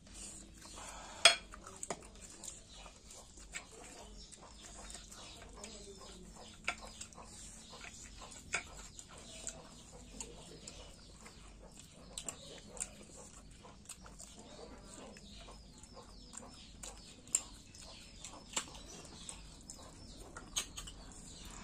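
Mukbang eating sounds: chewing and mouth sounds over a meal of curry and rice, with scattered short clicks and clinks of the plate, the loudest a sharp clink about a second in.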